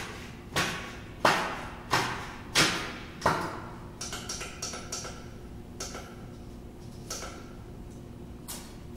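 Amplified found-object percussion on a tabletop: a run of five sharp hits about two-thirds of a second apart, each with a short fading tail, giving way after a few seconds to lighter, irregular taps and clicks.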